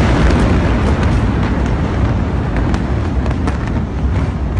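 Rumble of a very large explosion rolling on and slowly easing, with scattered sharp cracks and pops over it.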